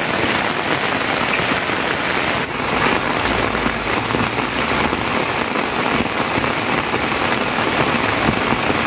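Steady rain falling on corrugated metal roofing, with rainwater running off the sheets.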